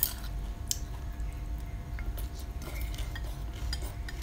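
Metal spoon and chopsticks clinking against ceramic bowls while curry broth is spooned over rice noodles and vegetables: a sharp clink right at the start, another under a second later, then a few faint taps.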